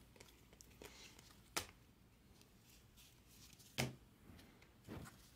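Baseball trading cards being handled: faint sliding with a few short taps as cards are flipped and stacks set down, the loudest tap just before four seconds in.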